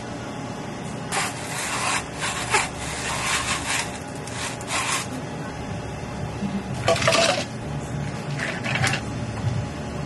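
Drink-topping handling noises: a metal spoon scraping and sprinkling cookie crumbs onto whipped cream, heard as short scratchy rustles over a steady low hum.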